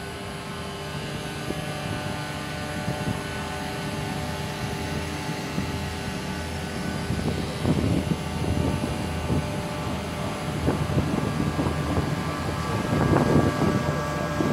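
Diesel engine of the inland tanker motor ship Piz Bever running steadily as it passes close by, a drone with several steady tones that grows louder. A rushing, churning noise builds in the second half, loudest near the end, as the propeller churns the water.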